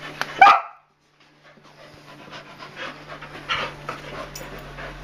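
Dogs at rough play: one sharp bark about half a second in, then, after a brief silence, rapid hard panting.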